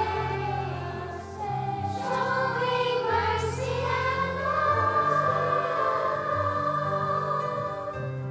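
Children's choir singing with keyboard accompaniment carrying low held notes underneath. Near the end the voices drop away and the accompaniment continues.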